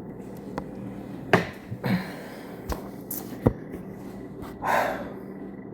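Several sharp clicks and knocks spread across a few seconds over a steady low hum, with a short breathy rustle about five seconds in.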